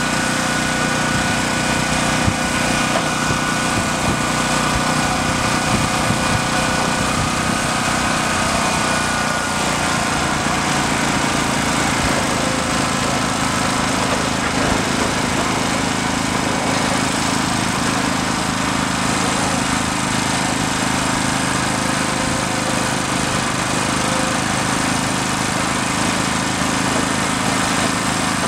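Engine of a crane barge working a clamshell grab, running steadily with a continuous mechanical drone; its note shifts about nine to ten seconds in.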